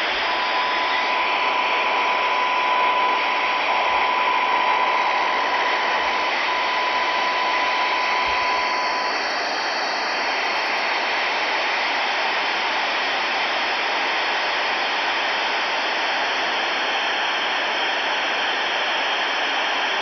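Radio receiver tuned to 36.925 MHz FM on the VHF low band, giving a steady loud static hiss. A steady high tone sounds over it from just after the start to about eight seconds in.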